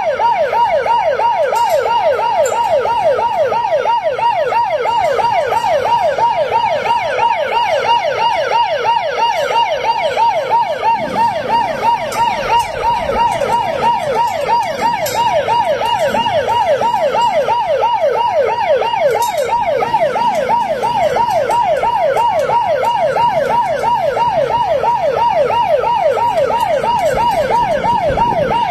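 Electronic siren in a rapid yelp, its pitch sweeping up and down about three times a second without a break at a steady loud level.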